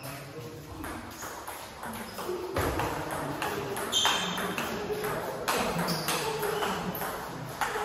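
Table tennis rally: the plastic ball clicking back and forth off the rackets and the table in a quick series of sharp pings.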